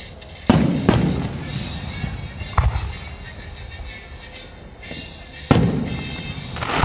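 Aerial firework shells bursting: four sharp booms, two in quick succession about half a second in, one near the middle and one about three-quarters through, each trailing off in a long rumbling echo.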